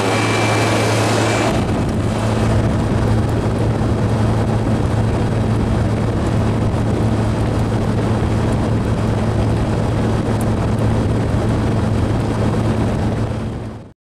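Carrier International Series 27,500 BTU window air conditioner running: a steady low hum under the even rush of its fan air. The hissing top of the air rush drops away about a second and a half in, and the sound fades out at the very end.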